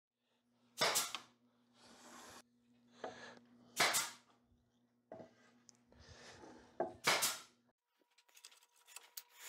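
Table saw making three quick crosscuts through small wooden trim pieces, each a short, loud burst about three seconds apart, over the low hum of the saw, with softer scraping of wood on the saw table between cuts.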